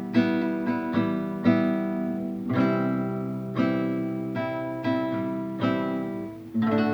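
Acoustic guitar strumming chords in an easy, slow strumming pattern, each strum ringing on, about one a second with a few quicker strokes between. The chord changes twice, about two and a half seconds in and near the end.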